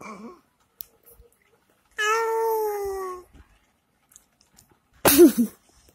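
Baby cooing: one drawn-out, high-pitched coo of about a second, gently falling in pitch, then a shorter, louder, breathy wavering coo near the end.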